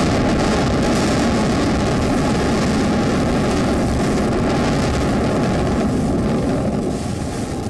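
Loud, steady rumble of two concrete high-rise towers collapsing in an explosive demolition, easing slightly near the end.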